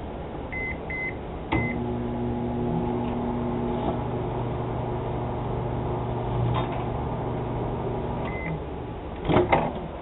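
Microwave oven keypad beeping three times, then the oven running with a steady hum for about seven seconds while a penny on a wire loop antenna arcs inside. It beeps once as it stops, and there is a short clatter near the end.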